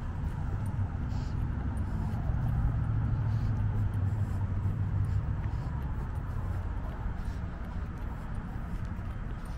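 Low rumble of a vehicle passing on the street, swelling about two seconds in and fading after about six seconds, over steady street ambience.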